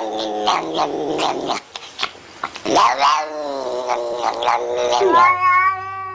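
A cat yowling: several wavering, pitch-bending cries, a short lull about two seconds in, then one long drawn-out yowl starting about five seconds in with a steady low hum beneath it.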